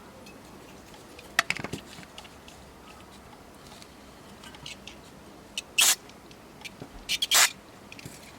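A few short clicks and knocks over a faint hiss: a quick cluster after about a second and a half, a single louder knock later on, and another quick cluster near the end.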